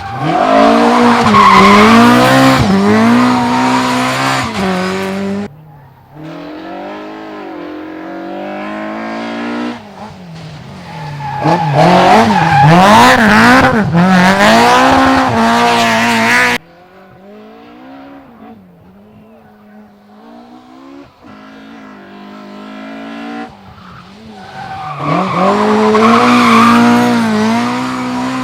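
Rally cars at full effort on a stage, engines revving hard and dropping as they shift gears and brake for corners, in three loud passes separated by abrupt cuts between clips.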